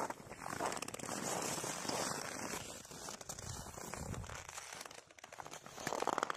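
Footsteps crunching through frozen snow: a steady run of crackly steps, dipping briefly about five seconds in.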